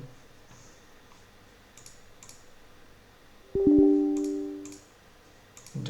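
Computer system alert chime: two quick tones, one right after the other, ringing for about a second and fading, a little past halfway through. A few faint mouse clicks come before it.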